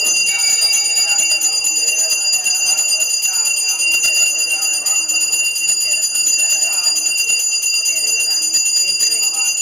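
Brass hand bell rung continuously during aarti, a steady fast jangling ring, with a man's chanting voice fainter beneath it.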